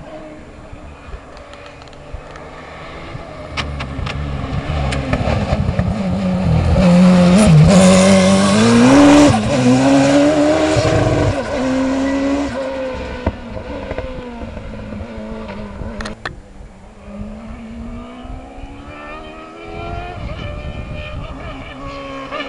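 Hillclimb competition car's engine at full throttle, growing louder as it approaches and passing loudest about a third of the way in, its pitch dropping and climbing through gear changes, then fading away up the hill. Near the end a second car's engine rises in pitch as it approaches.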